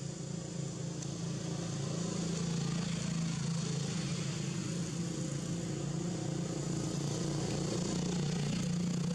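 A small engine running steadily, its hum slowly growing a little louder, over a constant hiss.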